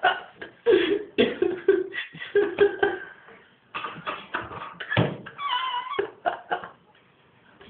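A cat meowing again and again in short calls, with one longer, wavering meow about five and a half seconds in.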